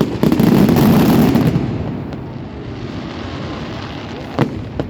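Fireworks exploding: a dense volley of bangs and crackling in the first second and a half fades to a lingering rumble, then two sharp single bangs come near the end.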